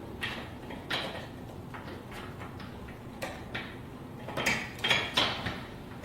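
Handcuffs clinking and rattling against a bench: scattered metallic clicks, loudest in a quick cluster about four and a half to five and a half seconds in.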